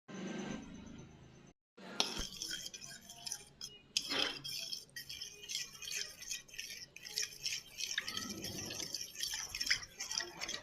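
Kitchen utensils clinking and knocking against a bowl and dishes while salad is being made, in quick irregular clinks that start about two seconds in.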